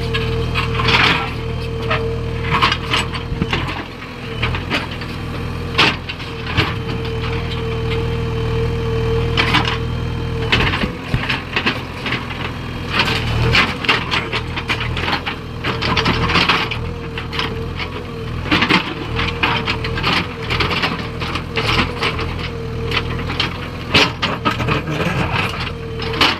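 Backhoe loader's diesel engine running steadily with a constant whine, under many sharp clattering knocks of stones being loaded.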